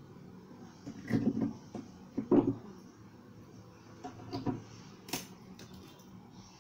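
Handling noises on a plywood shelf box: a few dull knocks and scrapes, the loudest about two seconds in, and a sharp click near the end.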